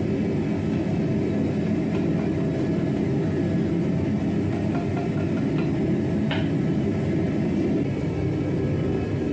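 Forge running with a steady low rumble, heating the billet; a few faint clicks sound over it.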